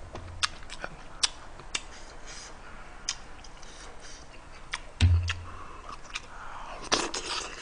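Scattered light clicks of a metal spoon against an aluminium stew pot and a small bowl while a person eats stew, with a dull thump about five seconds in and a quick cluster of clicks near the end.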